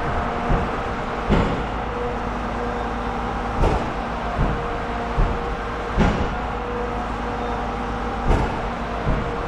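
Vehicle engine running steadily with a constant hum, with irregular loud clunks and knocks every second or so.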